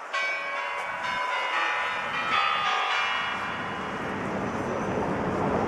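Bells of the Spasskaya Tower clock (the Kremlin chimes) ringing, several bell notes sounding together and fading away over about three seconds, over steady outdoor noise.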